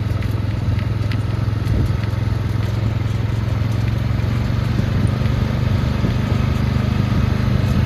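Small off-road vehicle engine running steadily under light throttle, a constant low hum.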